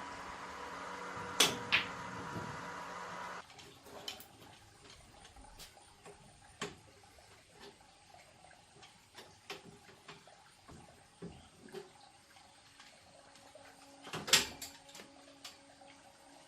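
A steady machine-like hum with two sharp clicks, which cuts off suddenly about three and a half seconds in. It is followed by scattered light clicks and taps of small hard objects being handled, with one louder knock near the end.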